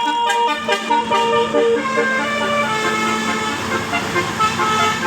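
Bus telolet horn, a Basuri multi-tone musical air horn, playing a tune of short stepped notes over a steady low held note.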